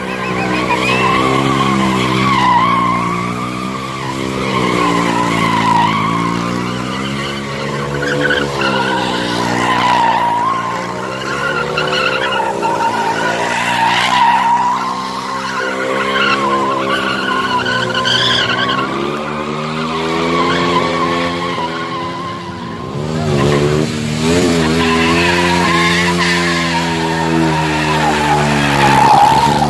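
A KTM stunt motorcycle's engine held at high revs, its pitch rising and falling as the throttle is worked, with tyres screeching on the track as in a burnout. The revs sag briefly about three-quarters of the way through, then climb again.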